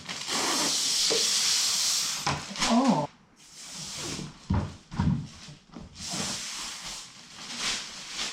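Packaging being handled and unwrapped: a steady rustle for about two seconds, then scattered shorter rustles and a few light knocks. A short hum from a person comes about three seconds in.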